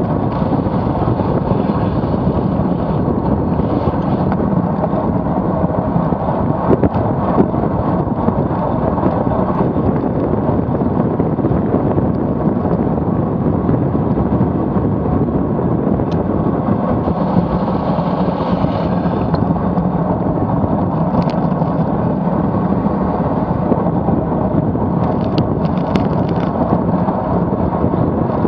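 Steady, loud rush of wind on a bicycle-mounted camera's microphone during a fast road-bike descent at about 43 km/h, with a few faint clicks.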